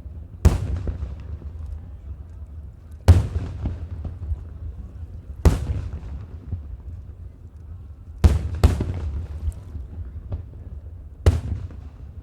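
Fireworks display: aerial shells bursting with sharp bangs every two to three seconds, six in all, two in quick succession about eight seconds in, over a steady low rumble.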